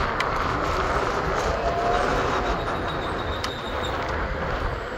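Steady rumbling noise of a train in an underground rail station. A faint high-pitched tone is held for a second or so near the middle.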